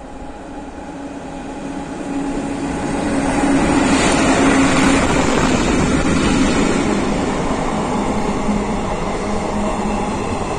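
Indian Railways electric locomotive approaching and passing close by with a steady hum, growing louder until it goes past about four seconds in. The rolling rumble of NMG car-carrier wagons going by follows.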